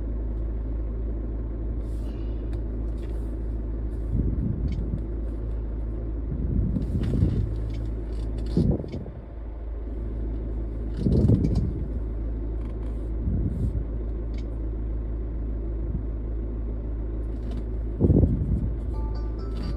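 Steady low rumble inside a parked car's cabin, with several brief bumps and rustles scattered through it.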